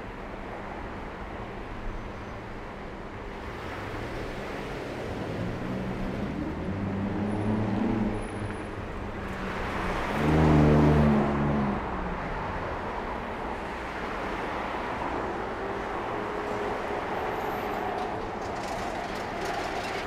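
Steady street traffic at a city intersection, with cars pulling through and an engine speeding up a few seconds in. About halfway through, one vehicle passes close by with a loud engine, the loudest sound in the stretch, before the general traffic noise carries on.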